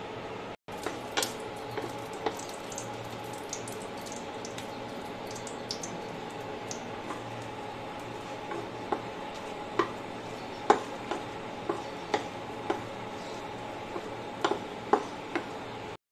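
Whole dried red chillies frying in oil in a nonstick kadai: a steady sizzle with scattered sharp pops and taps, more of them in the second half, as a spatula stirs and turns the chillies in the pan.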